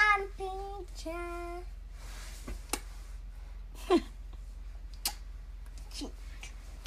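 A young child's voice making sing-song vocal sounds: a short melodic phrase and a briefly held note in the first two seconds, then a few short squeaks that fall in pitch, about a second apart.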